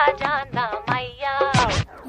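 Background music: a song with a melodic, sung-sounding line in short phrases.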